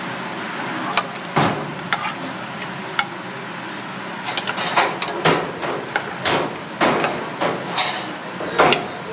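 Red plastic ladle stirring chunks of monkfish in water in a large stainless steel stockpot, knocking against the pot: sharp irregular clacks, a few scattered ones and then a quicker run from about four seconds in.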